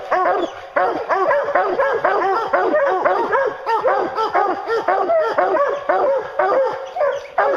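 A pack of hounds barking and baying at a black bear treed above them, in rapid overlapping calls from several dogs without a break. This is the tree bark that tells the hunter the bear is treed.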